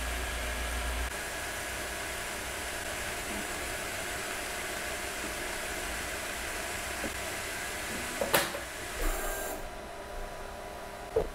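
Anycubic Kobra 3 3D printer running, a steady whir of fans and motors with a faint whine. There are a few sharp clicks about eight seconds in and near the end, and the hiss drops away about nine and a half seconds in.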